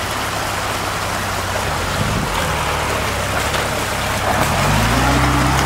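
UAZ Patriot SUV engine pulling the vehicle slowly through a muddy stream bed, the engine note climbing as it revs up near the end. Running and splashing water hisses under it throughout.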